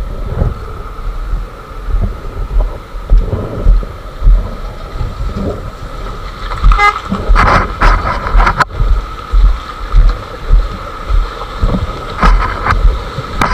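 Motorcycle engine running with a pulsing low rumble, and a vehicle horn toots briefly about seven seconds in.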